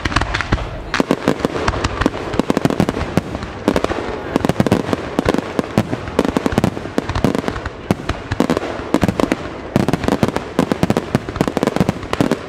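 Professional fireworks display: a rapid barrage of aerial shells launching and bursting, many sharp bangs in quick succession with a few brief lulls.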